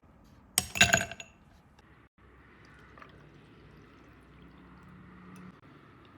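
Kitchenware clinking once with a short ringing tail about half a second in, followed by faint low kitchen noise.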